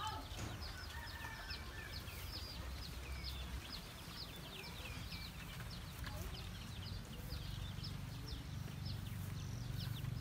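Chicks peeping: many short, high, falling peeps, several a second, over a low steady rumble.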